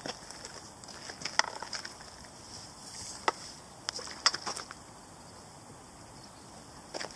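Water splashing in a series of short, sharp bursts as a carp thrashes at the surface close to the bank, with the loudest splashes about a second and a half, three and four seconds in.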